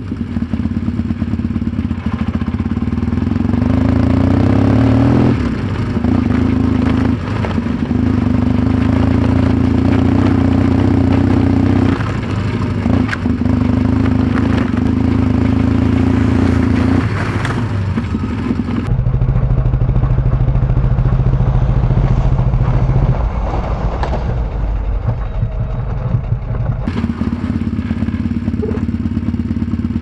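Large trail motorcycle engine running under load on a rough dirt track, its note dropping and picking up again every few seconds as the throttle is rolled off and on. Occasional knocks and clatter from the bike going over the rutted ground.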